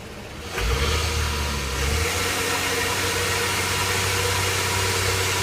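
2005 Honda Odyssey's V6 engine in gear and held against the brakes, coming up under load about half a second in and then running steady with a low buzzing hum. The buzz only appears in gear and comes from the catalytic converter vibrating.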